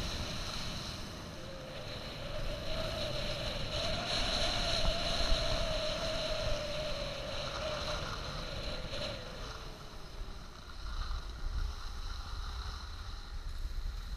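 Skis hissing and scraping over groomed snow while wind buffets an action camera's microphone, with a wavering tone rising and falling through the first two-thirds.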